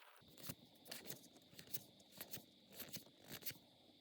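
Faint, short rustles and clicks, about two a second, from handling trading-card booster packs.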